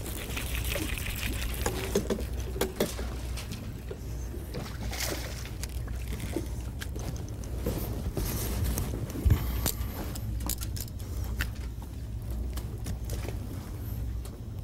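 Water splashing and trickling around a bass boat's bow over a low, steady motor hum, with scattered clicks and knocks and one sharp knock about nine seconds in.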